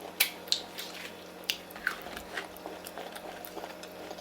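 A person chewing and biting food close to the microphone, with scattered short, crisp clicks and crackles.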